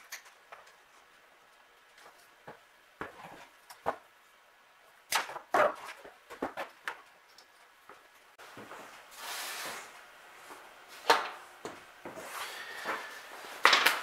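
Cloth-braided wiring being handled and pulled from an old car wiring harness: scattered light clicks and taps, with a longer rustling swish about nine seconds in as a wire is drawn out of the bundle.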